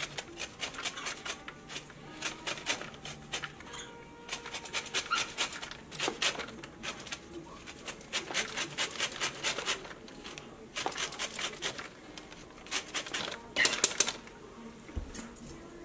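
A lemon being zested on a flat metal hand grater: runs of quick scraping strokes in several bursts, with short pauses between them.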